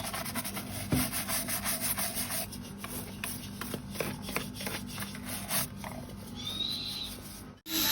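Tortoise shell being rubbed, with repeated short scraping strokes of hard shell against something rough.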